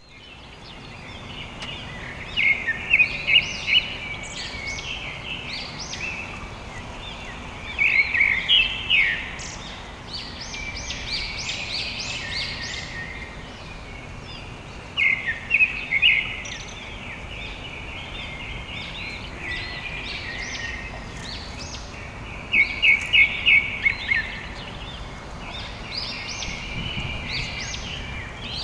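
Birds chirping: a loud quick series of chirps comes four times, roughly every six to seven seconds, with fainter calls in between, over steady background noise.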